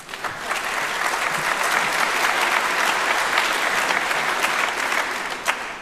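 Audience applauding, building up within the first second and dying away near the end.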